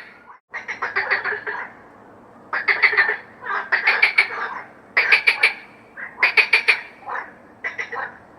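A chorus of frogs croaking with quacking, duck-like calls: bursts of rapid rattling pulses, each under a second long, coming about once a second and overlapping one another.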